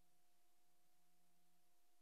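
Near silence: a faint steady hiss with a low, even hum, the empty sound track of a silent film.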